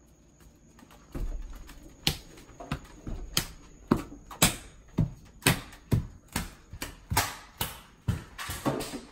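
A steady run of sharp percussive hits, about two a second, starting about two seconds in after a brief low rumble.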